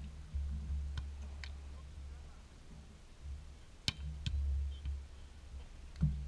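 A few sharp slaps of a beach volleyball being played during a rally, the sharpest about four seconds in, over a low rumble of wind on the microphone.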